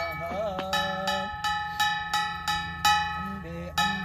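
A brass puja bell rung rapidly and without pause, about three strikes a second, its metallic ringing carrying on between strikes.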